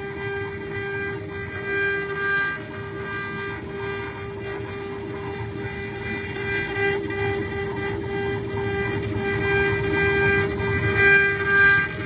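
CNC router at work: its water-cooled spindle runs with a steady high whine, while the stepper motors driving the axes add higher whines that come and go as the gantry moves, over a low rumble.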